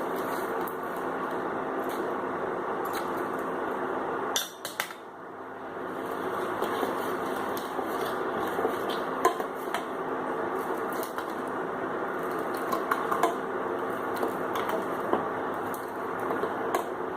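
Pan of milk boiling on a stove, a steady bubbling hiss, with a few small clinks against the pan. A short clatter about four seconds in, after which the sound drops briefly and builds back up.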